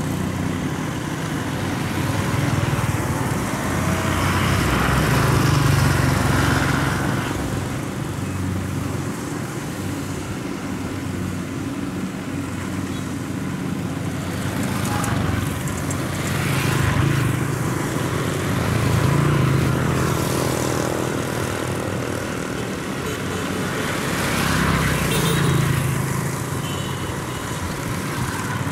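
Kubota DC-70 combine harvester's diesel engine running steadily, a continuous drone that swells and fades in loudness several times.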